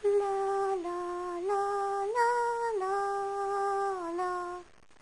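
A slow, simple tune of six held notes on a single melodic line, stepping down, up and back again, the fifth note held longest; it stops abruptly about half a second before the end.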